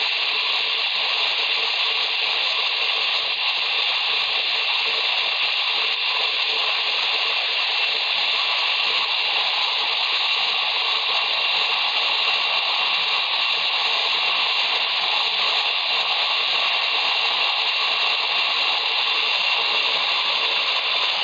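Small countertop blender running steadily, whipping a liquid strawberry mixture until it is frothy.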